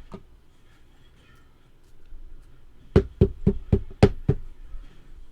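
A quick run of about seven sharp knocks on a hard surface, roughly four a second, with one fainter tap at the very start.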